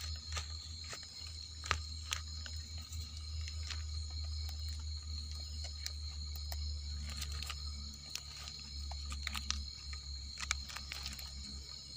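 A steady high-pitched chorus of night insects over a low rumble, with scattered clicks and rustles as termite mushrooms are pulled from the soil by hand.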